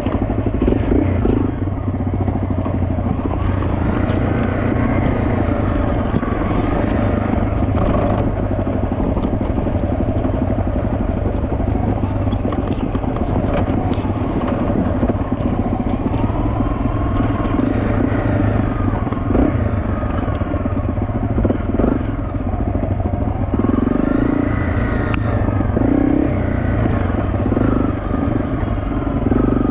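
Off-road motorcycle engine running at low trail speed, the revs rising and falling several times with the throttle, with occasional knocks and rattles from riding over rough ground.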